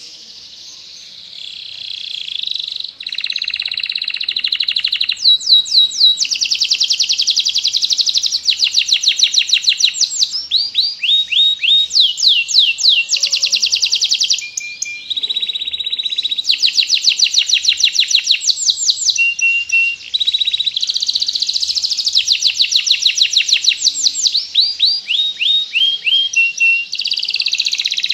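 Domestic canary singing a long, continuous song of fast trills, rapid runs of down-sweeping notes and short held whistles, quieter for the first two seconds and then loud.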